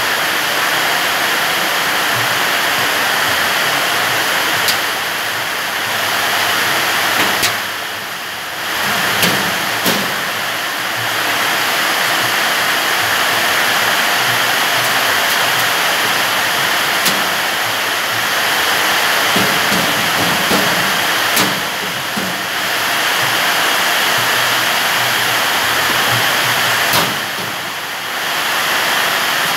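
A loud, steady rushing noise with no pitch, dipping briefly twice, with a few sharp knocks and clicks from the steel filing cabinet's panels being handled.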